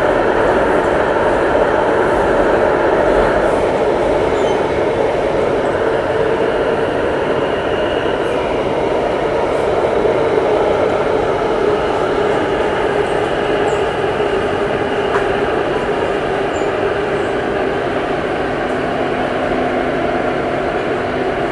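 Steady running noise of a Singapore MRT North East Line train heard from inside the carriage as it travels through an underground tunnel: a continuous rumble and rush of wheels on rail that eases slightly toward the end.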